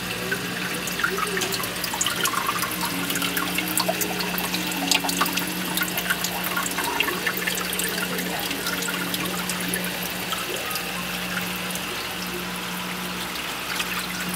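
Water splashing and trickling in a reef aquarium sump, with many small drips and bubble pops, over a steady low hum that drops out briefly twice.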